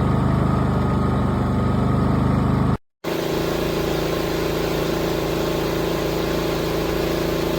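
Westinghouse 4000-watt dual-fuel portable inverter generator running with a steady engine hum. It cuts to silence for a moment about three seconds in, then carries on at a different steady pitch.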